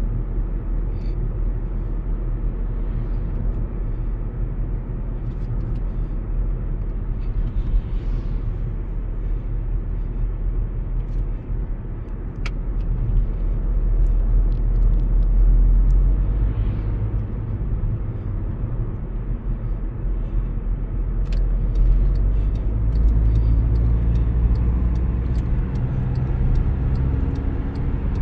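Volkswagen Passat B7 driving, a steady low rumble of engine and road that swells louder twice, about halfway through and again a few seconds later.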